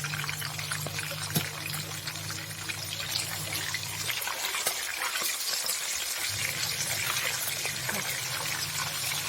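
Tilapia frying in hot oil in a pan: steady sizzling with many small crackles and pops.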